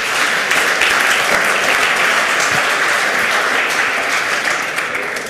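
Audience applauding: many hands clapping in a dense, steady wash that dies away near the end.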